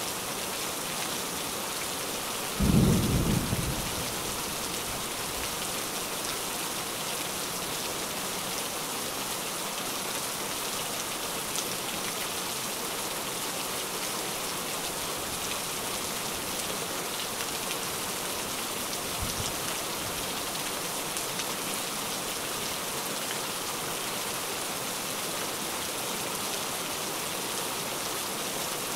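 Steady rain with one loud clap of thunder about three seconds in that rolls off over about a second. A much fainter low rumble comes about two-thirds of the way through.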